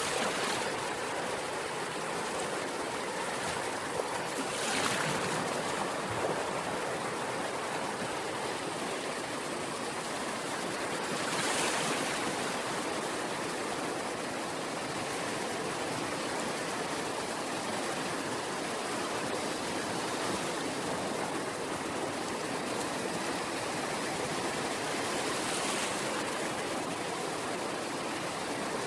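Ocean waves washing on the shore: a steady hiss of surf with a few louder waves breaking, about five seconds in, near the middle and near the end.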